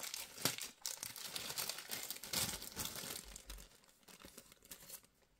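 Small clear plastic zip bag crinkling in the hands as a pen is packed into it; the irregular crackling dies away about a second before the end.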